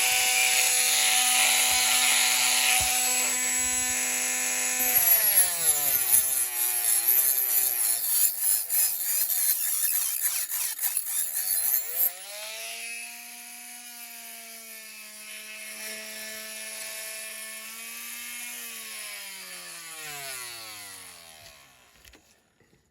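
Small rotary power tool cutting through a model car's dashboard. Its steady motor whine sags in pitch with a rattly grinding noise as the cutter bites. It then runs quieter at a lower speed and winds down near the end.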